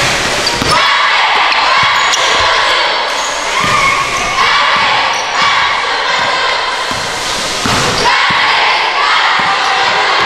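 Basketball bouncing on a gym floor at irregular moments during play, over a steady mix of players' and spectators' voices.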